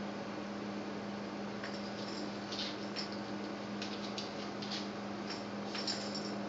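Dog sniffing at a cockroach in short, faint snuffles, in a few clusters from about a second and a half in, over a steady low hum.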